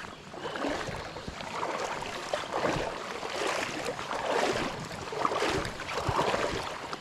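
Creek water splashing and sloshing in uneven surges, with a few sharp splashes.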